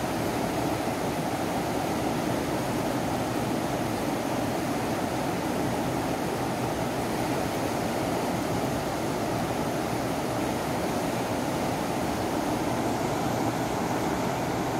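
Fast-flowing river rushing over rapids: a steady, even rush of water.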